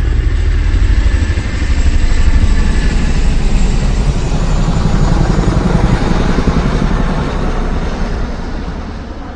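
A motor vehicle's engine running with a rapid low pulsing, then fading away over the last few seconds.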